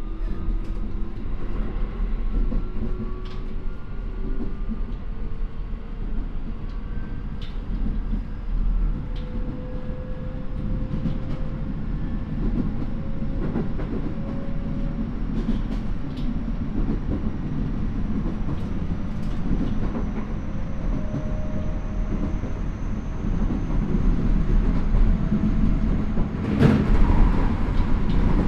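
Keio 9000 series electric train's Hitachi IGBT inverter and traction motors whining, the tones climbing slowly in pitch as the train gathers speed. Under it runs the rumble of the running gear, with wheel clicks over rail joints. A brief louder rush of noise comes near the end.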